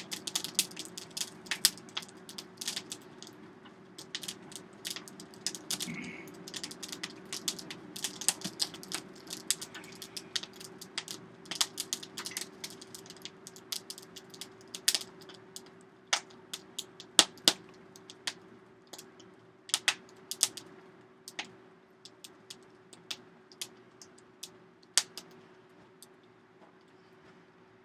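Wood and coal burning in a blacksmith's coal forge, crackling and popping in sharp, irregular clicks that come thick at first and grow sparser, over a steady hum.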